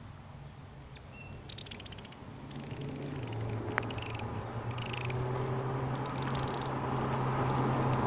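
Hummingbirds at a nectar feeder: a steady low hum of wingbeats that grows louder, broken by several short bursts of rapid, high chittering calls.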